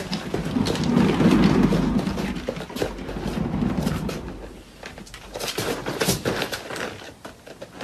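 Cat exercise wheel rolling under a running cat, a low rumble mixed with rattling clicks and knocks. The rumble dies down after about four seconds, leaving scattered taps and knocks.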